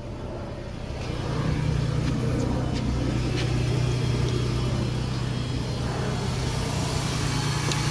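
2015 Ford Transit van's engine idling steadily, growing a little louder about a second in and then holding an even hum.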